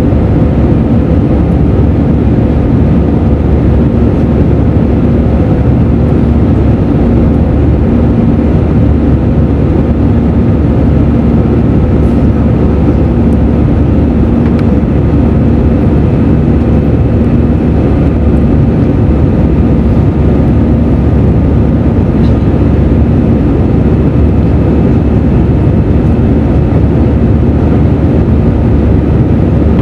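Steady jet-engine drone and rushing air inside the cabin of an Airbus A320 climbing out after takeoff, heard from a window seat over the wing, with a low steady hum running through it.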